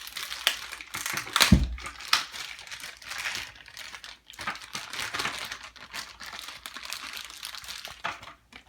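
Plastic packaging crinkling and rustling as toy pieces are handled and unwrapped, with one thump about one and a half seconds in.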